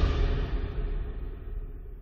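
Background music fading out, its treble dying away first and the whole growing steadily quieter.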